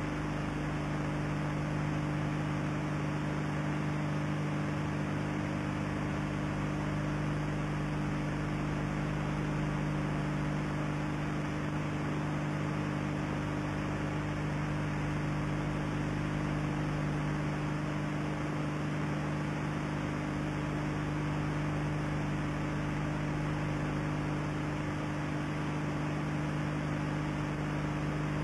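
Steady electrical mains hum, a few low tones held unchanging, over constant hiss. It is the noise floor of an old analogue video recording, with no other sound standing out.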